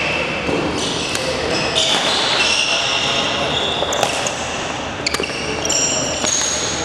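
Busy badminton hall sound in a large echoing gym: a few sharp knocks from shuttlecocks being struck and high squeaks of court shoes on the wooden floor, over a background of voices.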